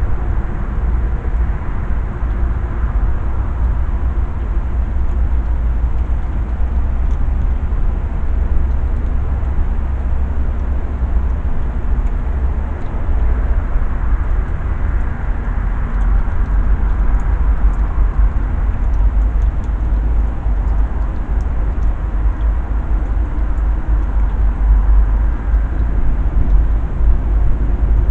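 A steady low rumble with an even hiss above it. Faint, scattered ticks sound now and then over the top.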